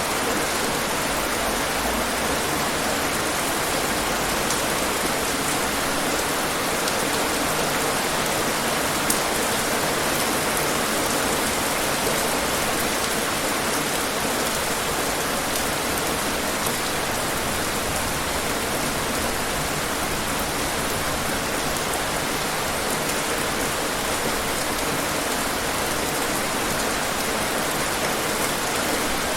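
Steady rain falling on hard surfaces, an even hiss with occasional sharper drop ticks, one about nine seconds in.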